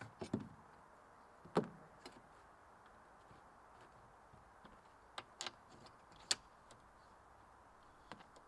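A few scattered knocks and clicks of things being handled, with a loud knock about one and a half seconds in, a couple more around five seconds and a sharp one about six seconds in, over a faint steady hiss.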